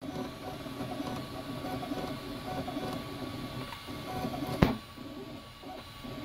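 Ultimaker 2+ 3D printer running a print: its stepper motors whir in quick runs of short tones that keep changing pitch as the print head moves. A single sharp click stands out a little over two-thirds of the way through.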